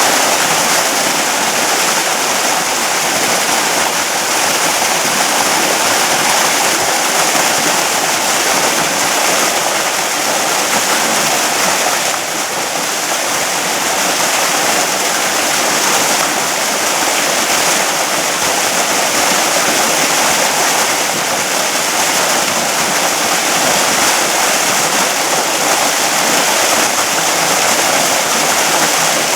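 Seasonal canyon waterfall running full after rain: a steady, loud rush of falling water.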